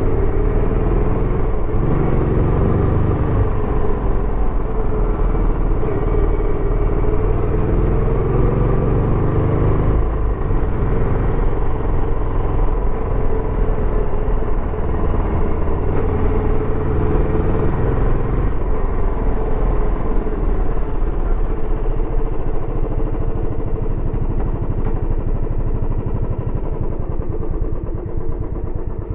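Royal Enfield Bullet 350X's air-cooled single-cylinder engine running through its stock exhaust while being ridden, the engine speed rising and falling through the first part, then holding steadier and easing off slightly near the end.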